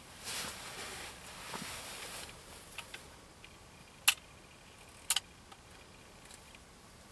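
Rustling of close movement for a couple of seconds, then two sharp clicks about a second apart.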